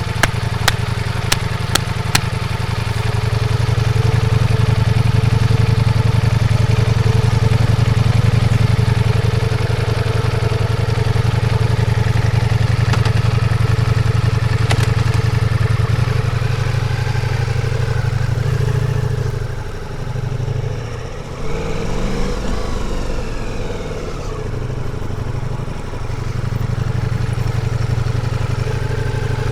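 Ducati Multistrada V4 S's 1158 cc V4 engine running at a steady note, with a few sharp clicks in the first couple of seconds. From about 19 to 26 seconds in, the engine pitch dips and climbs several times before settling back to a steady drone.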